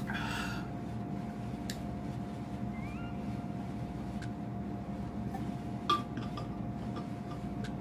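A steady low background hum, with a few light clicks and clinks scattered through it, the sharpest about six seconds in.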